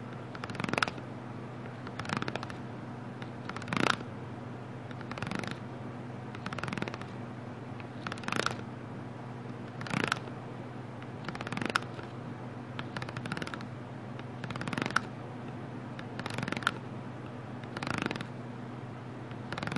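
A hand tapping and handling an object held close to the microphone: short bursts of clicking and rustling, about a dozen of them, evenly spaced roughly every one and a half seconds, over a steady low hum.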